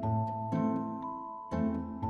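Background music: notes struck with sharp attacks that fade out, over a held melody tone that steps up in pitch about a second in.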